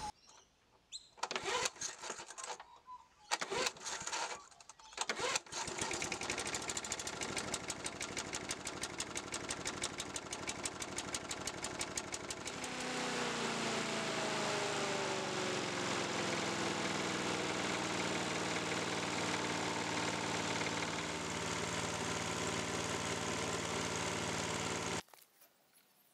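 Briggs and Stratton single-cylinder engine on a Rover PowerMaster push mower, pull-started after a service: a few short bursts, then it catches and runs with a rapid beat through its homemade muffler. About halfway it becomes louder and more even, and the sound cuts off abruptly about a second before the end.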